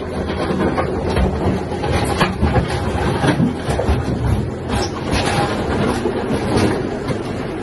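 Farm tractor with a front-end loader running and driving past up close through mud and slush, its engine humming steadily under irregular clanks and rattles.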